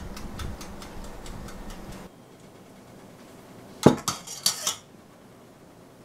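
A toaster oven's timer dial being turned, giving a run of small clicks for about two seconds. Then come a few sharp metal clinks, the loudest sounds, of a kitchen utensil knocking on the work surface.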